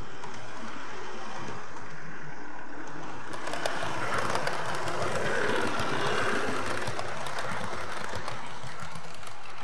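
00 gauge model train running on the track: a steady motor and wheel hum with fine clicking from wheels over rail joints. The sound swells as a model CrossCountry Voyager passes close by, about four seconds in, then settles back.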